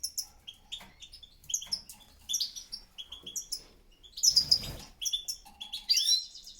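Caged European goldfinches chirping and twittering in short, quick high calls. A brief rustling thump comes about four and a half seconds in.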